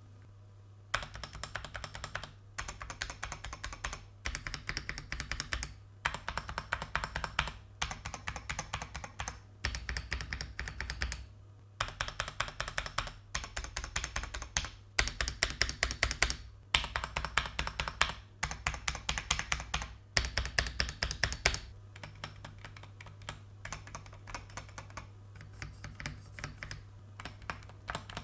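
Typing on a Feker JJK84 75% mechanical keyboard with Ajazz Banana tactile switches and SA profile keycaps. The keystrokes come in quick runs with short pauses and become quieter about three-quarters of the way through.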